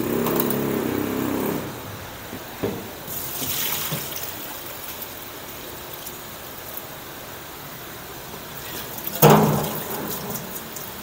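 Soaking water pouring out of a pot through a plastic colander of soaked rice vermicelli into a stainless-steel sink, splashing and then trickling as the noodles drain. A short scrape opens it, and a single clunk of the bowl or colander is the loudest sound, about nine seconds in.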